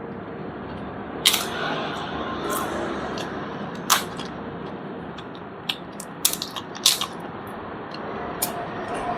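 Eating sounds: a few sharp crunches of crispy rice paper being bitten and chewed, scattered irregularly over a steady low hiss.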